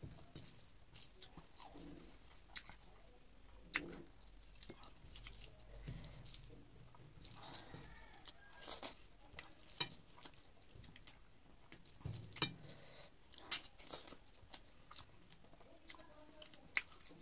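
Close-up chewing of mouthfuls of rice mixed with crisp besan-fried bitter gourd: irregular sharp crunches among softer wet chews, with fingers working the rice on the plate between bites.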